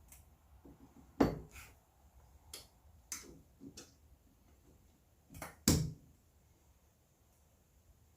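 Tools and bolt hardware clinking and knocking while a rear coilover's lower mount is bolted up: about seven separate short hits, the loudest about a second in and just before six seconds in.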